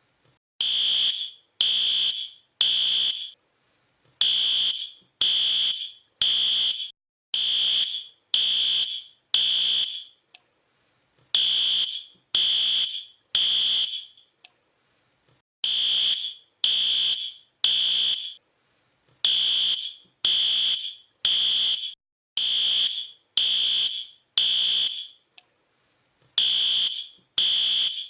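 Fire alarm beeping in the temporal-three pattern: high-pitched beeps in sets of three, about a second apart, with a short pause between sets. This is the standard evacuation signal of a smoke or fire alarm.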